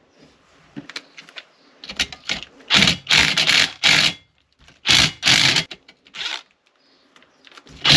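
A socket ratchet clicking in short repeated strokes as the muffler nuts on a Stihl MS180 chainsaw are undone, after a couple of seconds of light tool handling. The nuts are rusty.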